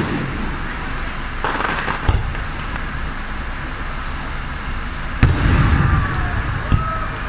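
Aerial fireworks shells bursting: sharp bangs at the start and about two seconds in, with crackling between them, then the loudest bang about five seconds in, rumbling for about a second, and another bang shortly after.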